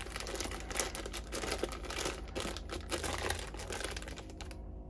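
Clear plastic bag holding a new clutch plate kit crinkling as it is handled, in quick irregular crackles that ease off near the end.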